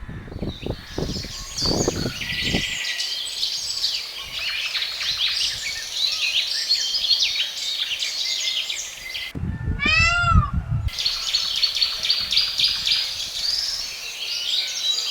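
A dense chorus of small birds chirping and twittering throughout, with a peacock's single loud, drawn-out call about ten seconds in. A low rumble sits under the first two seconds and under the peacock call.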